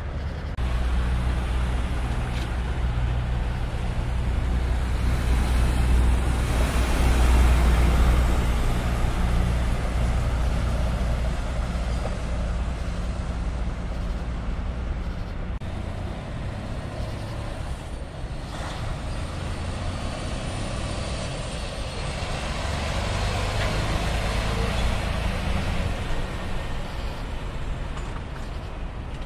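Diesel engines of tractor-trailers running, with road noise as semi trucks pull past. The sound swells louder about a quarter of the way in and again toward the end.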